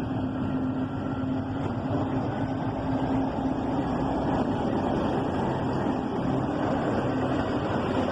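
Diesel locomotive engine working under power as a train pulls away. It swells over the first second, then runs on steadily with a low, even drone.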